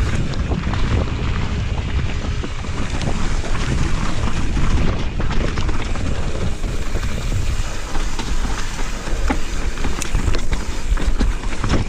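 Mountain bike speeding down a dirt trail: wind buffeting the action camera's microphone over the rumble of the tyres on the dirt, with frequent sharp knocks and rattles from the bike hitting bumps, busiest about ten seconds in.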